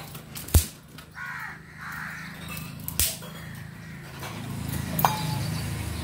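Sticks being handled and fed into an open wood fire, with a few sharp cracks, the loudest about half a second in and others near the middle and near the end. Crows caw briefly in the background.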